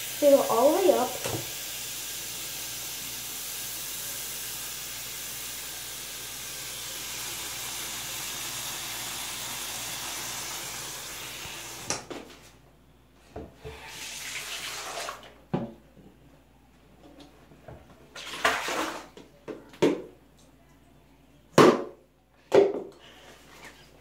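Bathroom sink faucet running steadily into a plastic cup, then shut off about halfway through. After that, only a few short knocks and brief sounds.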